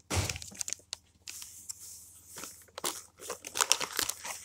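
Paper rustling and crinkling as a large instruction sheet is handled, in a string of short crackles, with a soft bump at the start.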